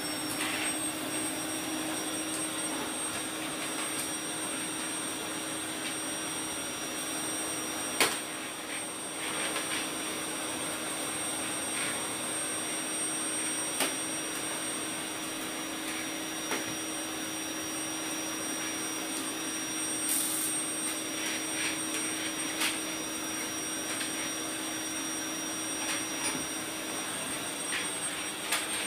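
Bagless canister vacuum cleaner running steadily with a constant high whine over its airflow noise, its floor brush pushed over a tiled floor. A sharp knock comes about eight seconds in, and a few lighter clicks follow later.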